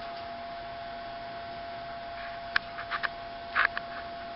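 Steady electrical hum with a thin constant tone, and a few sharp clicks and a short scrape past the middle as a brake reservoir supply line is forced into its seat in a new brake master cylinder.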